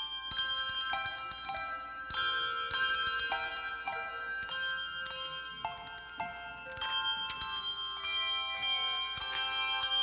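A handbell choir playing a piece on brass handbells: chords of struck bells every half second or so, each note ringing on and overlapping the next.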